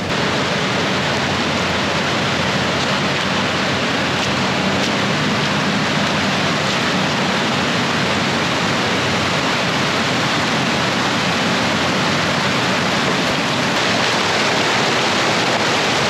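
Steady, unbroken rush of fast-flowing mountain water.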